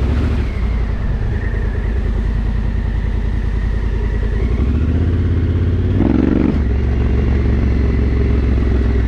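Adventure motorcycle engine running steadily at low revs while riding down a gravel road. About six seconds in there is a short louder surge, and the engine note changes.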